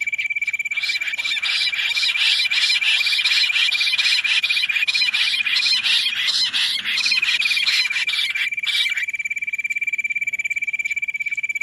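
Quail calls: a steady, fast-pulsing high trill throughout. From about a second in until about nine seconds it is joined by a dense run of rapid chirping calls, then drops back to the trill alone.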